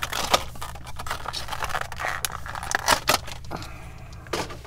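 Clear plastic blister packaging of a diecast toy car crackling and clicking as it is handled, with a quick run of sharp clicks.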